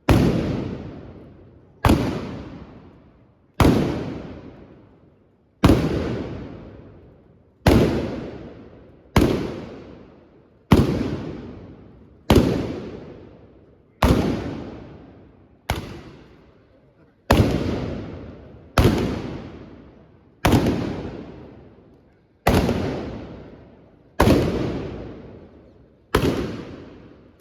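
Trabucs (Catalan blunderbusses) firing black-powder blank shots one after another, about sixteen bangs at roughly one every one and a half to two seconds. Each bang echoes and dies away before the next.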